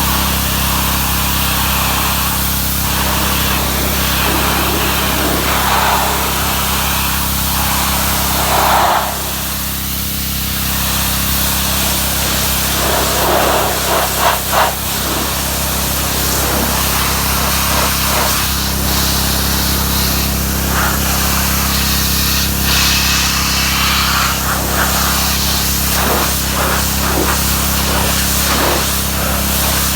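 Pressure washer running: a steady motor drone under the hiss of the water jet, which rises and falls as the spray moves over the surfaces.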